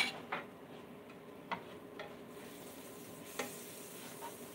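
Grilled cheese sandwiches frying in a buttered nonstick pan with a faint sizzle that brightens a little past two seconds in, and four light clicks of a knife and spatula against the plate and pan.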